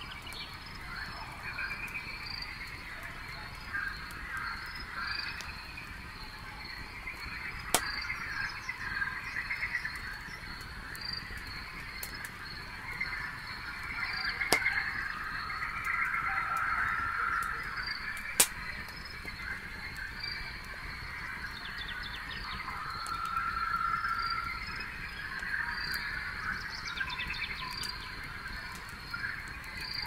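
Campfire crackling, with three loud sharp pops in the middle stretch, over a steady night chorus of chirping insects and other night calls.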